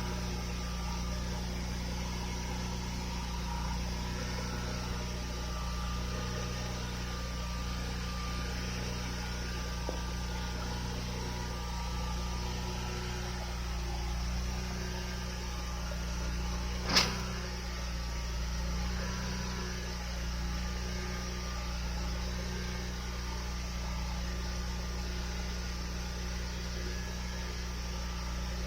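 Steady low electrical hum, with one sharp click about seventeen seconds in.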